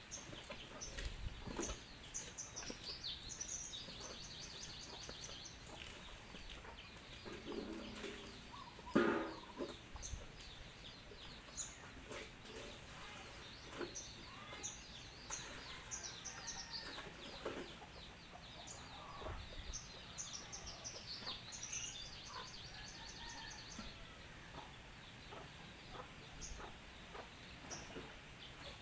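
Birds calling: repeated high chirps and quick trills, with clucking. A sharp knock about nine seconds in is the loudest sound, and there are scattered softer knocks.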